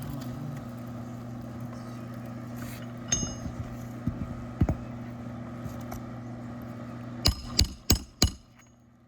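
Metal roofing tools clicking and knocking on a shingle roof: a few light clicks, then four sharp ringing knocks in quick succession near the end. A steady low hum runs underneath and stops just after the knocks.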